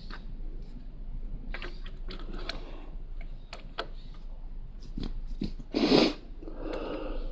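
Plastic Lego pieces being handled and pressed together: scattered small clicks and crunches. A louder, short rushing burst comes about six seconds in.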